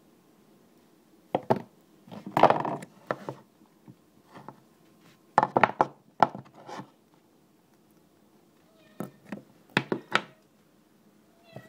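Clusters of sharp clicks and knocks, with a short scrape, as hard parts of an eGo-style e-cigarette battery and tools are handled during disassembly. Between the clusters it is quiet.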